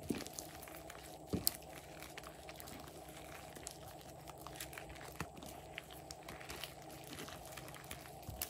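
Slime being worked by hand, with scattered small sticky clicks and crackles, a couple of sharper ones just after the start and about a second and a half in, over a steady background hum.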